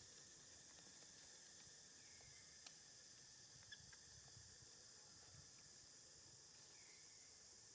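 Near silence: a faint, steady high-pitched hiss of outdoor background, with two faint clicks about a second apart near the middle.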